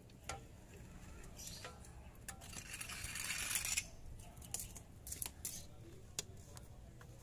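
Scattered sharp metallic clicks and clinks of a wrench and other hand tools being handled, with a louder scraping rush lasting about a second and a half near the middle.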